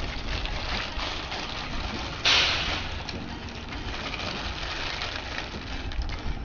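Plastic packaging rustling and crinkling while chair casters are unwrapped, with a loud rip or crinkle about two seconds in.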